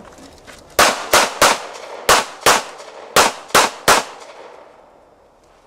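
Handgun fired rapidly during an IPSC practical-shooting stage: eight sharp shots in quick strings of three, two and three, each with a short ringing tail. The shots stop about four seconds in.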